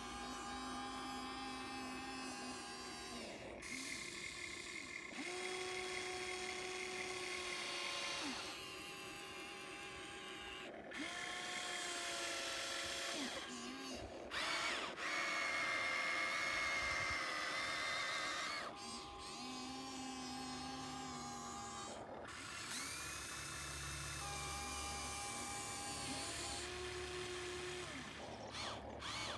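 Small electric motors of an RC excavator whining in spells of a few seconds as it works, each run rising in pitch as it starts and falling away as it stops.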